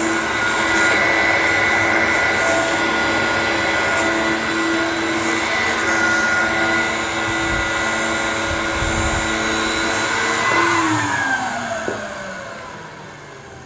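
Dyson DC01 bagless upright vacuum cleaner running steadily with a whine. About ten and a half seconds in it is switched off, and its motor winds down in falling pitch.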